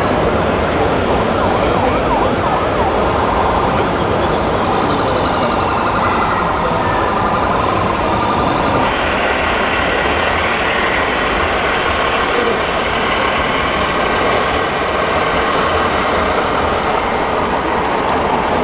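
Busy exhibition-hall din around RC model trucks being driven: a dense, steady wash of noise, with a wailing, siren-like tone rising and falling through the first half.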